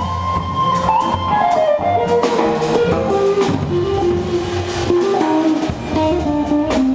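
Live jazz band playing a blues, with guitar, upright bass and drums; a single melody line steps downward in pitch over the bass and drums.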